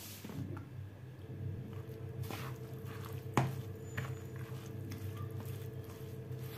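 A metal spoon stirring a wet batter of grated zucchini, potato, egg and flour in a plastic bowl: soft irregular squelching and scraping, with one sharper click about three and a half seconds in. A low steady hum runs underneath from about a second in.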